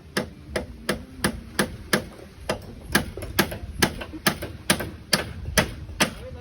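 Hammer blows in a steady rhythm, about two to three strikes a second, on construction work during beam assembly.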